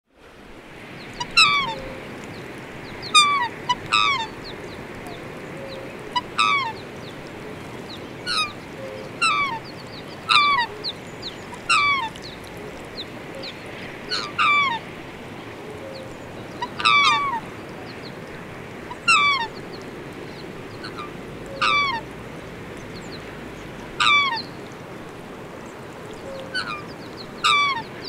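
Waterfowl honking: short, high calls that fall slightly in pitch, repeated at irregular intervals of one to two and a half seconds, sometimes in quick pairs, over a steady background hiss.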